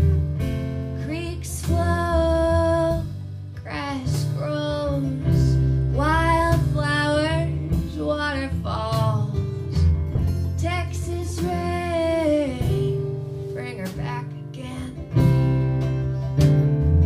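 A woman singing slow, held notes over a strummed acoustic guitar. The singing stops about 13 seconds in and the guitar plays on alone.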